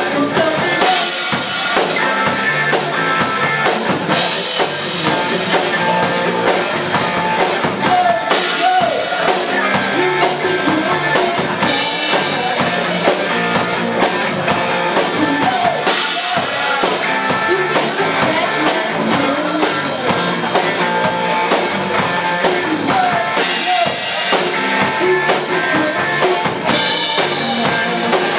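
Rock band playing, the drum kit to the fore with bass drum and snare keeping a steady beat under the other instruments. A cymbal crash comes about every four seconds.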